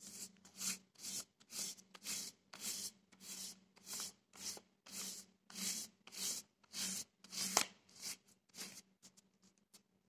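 Hands rubbing the back of a sheet of paper laid over an inked printing plate, pressing the white ink onto the paper by hand; a steady run of short dry swishes, about two a second.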